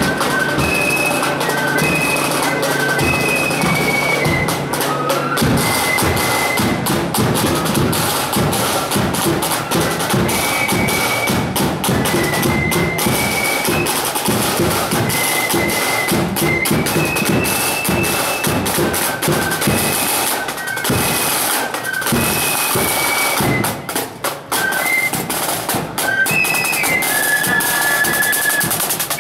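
Marching flute band playing a tune: a high flute melody over rapid snare drumming and a bass drum beat.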